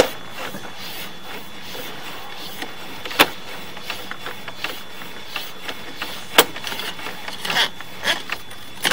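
Manual push-rod sewer camera cable being pulled back by hand through a 3-inch PVC cleanout: irregular sharp clicks and knocks over a steady hiss, the sharpest about three and six seconds in.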